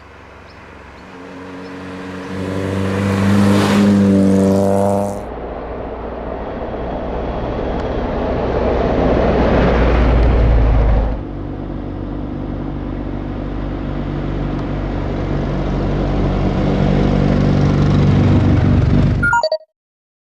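Historic rally cars' engines under hard acceleration on a stage. One car's engine climbs in pitch and loudness over the first few seconds. Abrupt changes at about five and eleven seconds lead into another engine building steadily louder, which cuts off suddenly near the end.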